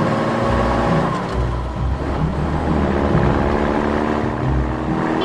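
Dubbed vehicle engine sound effect running steadily over background music with a low repeating beat.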